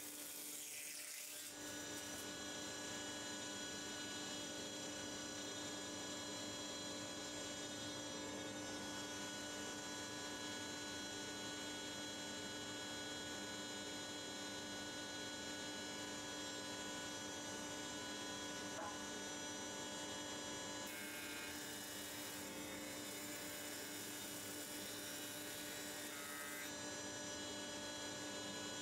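Faint steady electrical hum with several steady higher tones over it, starting about a second and a half in.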